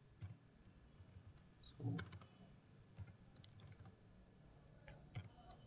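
Faint computer keyboard typing: a handful of separate keystrokes spaced out over several seconds, the loudest about two seconds in.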